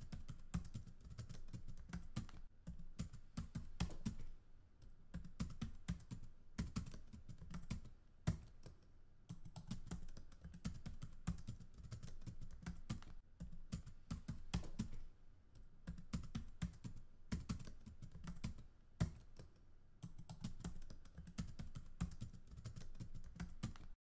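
Typing on a computer keyboard: quick runs of keystrokes broken by short pauses, with a few strokes louder than the rest.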